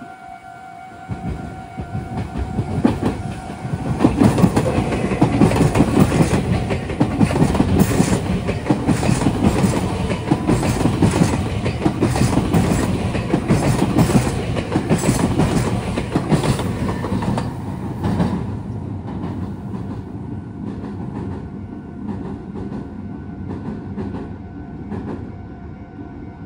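Meitetsu electric train passing close by, its wheels clattering rapidly over the rail joints. The sound builds about a second in and fades away after about eighteen seconds.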